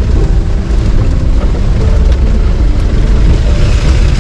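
Four-wheel-drive jeep engine running in low gear on a rough, muddy off-road track, heard from inside the vehicle as a loud steady rumble with the body rattling and knocking over the bumps.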